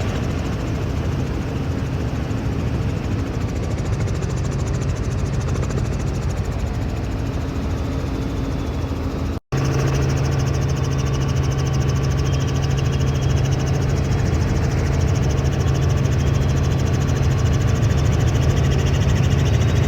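Helicopter engine and rotor drone, heard as a steady, loud mechanical hum with a low pitched tone. It breaks off for an instant about halfway through and comes back slightly louder.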